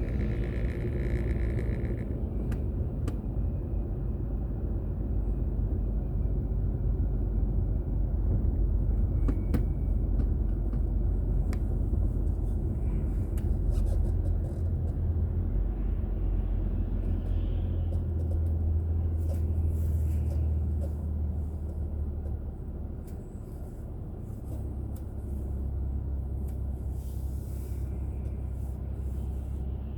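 Car road and engine noise picked up by a dashboard drive recorder inside the car: a steady low rumble that eases somewhat about two-thirds of the way through.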